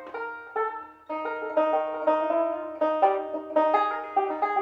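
Banjo picked solo, a run of plucked notes with a short pause about a second in before the picking carries on.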